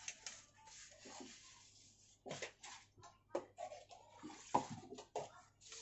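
A metal spoon stirring rice in an aluminium cooking pot, with short scrapes and knocks against the pot's side, mostly from about two seconds in.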